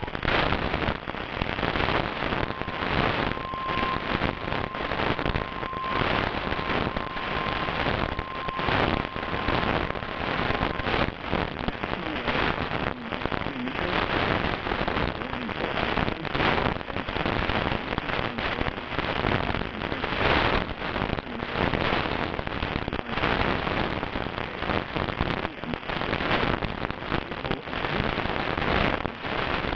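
Weather radio static: a dense crackling hiss with no voice on the channel. A faint steady tone sounds through it for roughly the first ten seconds.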